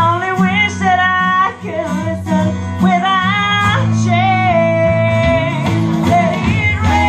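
A woman sings a country song into a microphone, holding and bending long notes, over a guitar accompaniment played through PA speakers.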